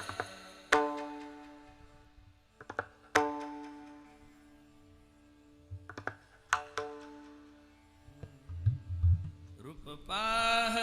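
Sparse strokes on a tuned hand drum in a kirtan, each ringing at a steady pitch and dying away, with a few low booming bass strokes later on. Fuller devotional music with singing comes back in near the end.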